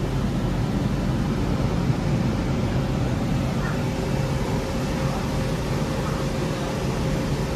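Steady low hum and air noise inside a Singapore Downtown Line MRT train standing at a station with its doors open, with a faint constant tone in the hum.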